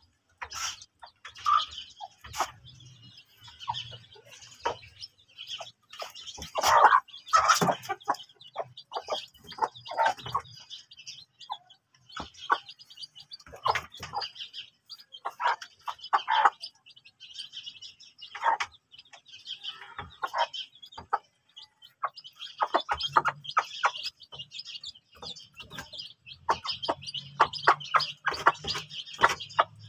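Aseel mother hens clucking to their newly hatched chicks, which peep almost constantly. The loudest flurry of calls comes about seven seconds in.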